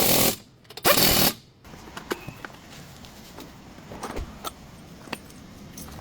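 Two short bursts of a pneumatic impact wrench, one at the start and one about a second in, followed by scattered light clicks of tools.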